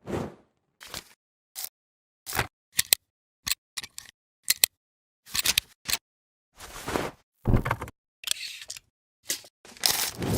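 A string of short, unrelated editing sound effects played one after another, each separated by dead silence: quick clicks and snaps, some like a camera shutter, with a few longer noisy effects in the second half.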